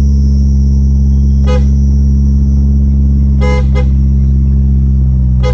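Newly fitted PIAA snail horns sounding in one long, loud, steady blast, with a few short extra blips over it.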